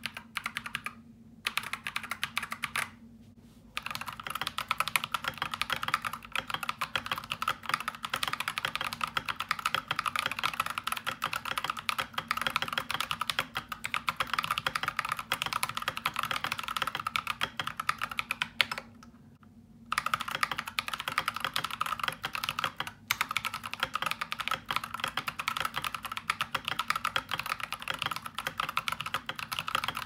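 Typing on an Akko 3098 mechanical keyboard with its stock Akko CS Ocean Blue tactile switches and ASA-profile keycaps: a steady, fast clatter of keystrokes, broken by brief pauses near the start and about two-thirds of the way through.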